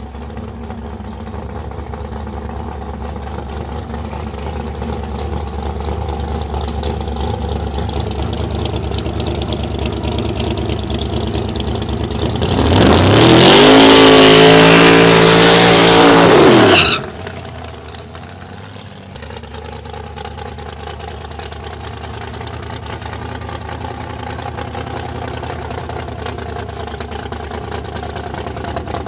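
A 1969 Chevrolet Camaro SS drag car's engine idles with a deep rumble. About twelve seconds in it revs up hard and holds at high revs for about four seconds in a burnout, with the hiss of spinning rear tyres over it. Then it drops suddenly back to a rumbling idle.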